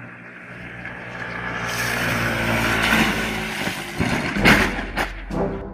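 Small motorcycle engine approaching and revving, growing steadily louder over the first three seconds, followed from about four seconds in by several sharp knocks and clatters.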